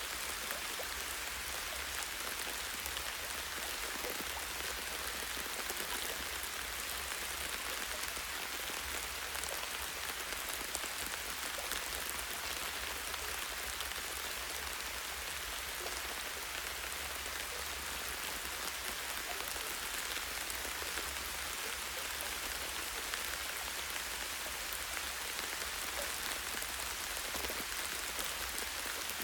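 Light rain falling steadily on forest foliage, a continuous even hiss flecked with tiny drop ticks, and no change in strength.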